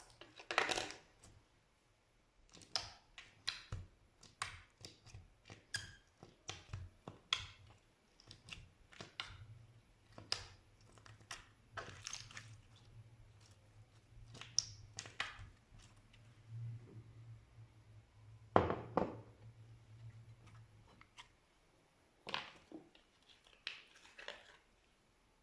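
Slime being squeezed and poked by hand: irregular sticky clicks, crackles and squelches, with a faint low hum in the middle stretch.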